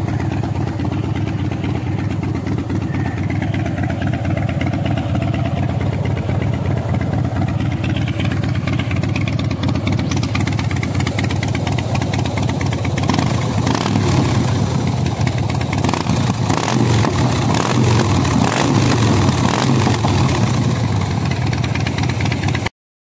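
Harley-Davidson Fat Boy's V-twin running through a Vance & Hines Big Radius exhaust, idling steadily. About halfway through it gets louder and more uneven, and the sound cuts off suddenly near the end.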